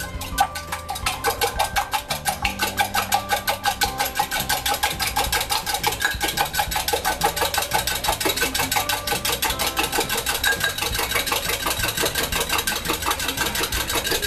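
Eggs being whisked with a fork in a small clear cup: a fast, even run of clicks, about five or six strokes a second, as the fork strikes the cup.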